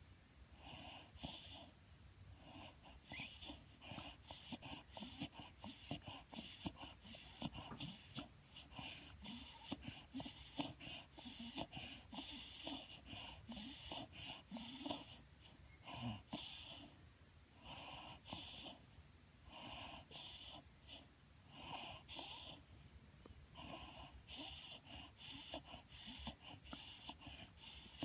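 A dozing beagle breathing noisily through its nose: short, breathy puffs in an irregular rhythm of roughly one or two a second.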